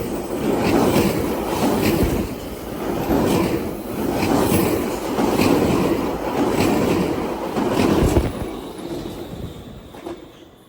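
GO Transit commuter train rolling past, its wheels clattering over the rails in repeated swells. The sound falls away about eight seconds in.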